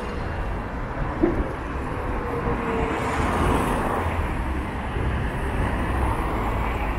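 Steady road traffic on a busy city avenue: cars and buses running past in a continuous low rumble, with a faint steady whine for the first few seconds.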